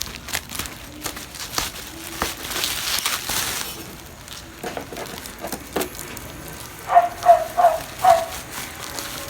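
Packaging being handled during an unboxing: crackling and clicking of plastic and cardboard, with a burst of rustling about three seconds in. Near the end come four short high-pitched yelps in quick succession.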